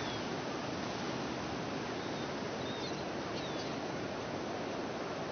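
Ocean surf breaking on a sandy beach, a steady wash of noise, with a few faint, short, high bird calls over it.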